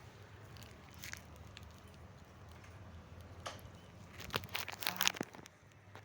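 Cooking utensil clicking and scraping in a pan of frying masala, with a cluster of sharp clicks about four to five seconds in, over a faint steady low hum.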